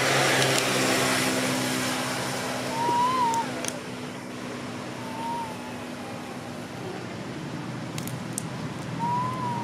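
An engine idling with a steady low hum that fades out about two-thirds of the way through. Three short whistling calls rise and fall over it, and there are a few sharp clicks.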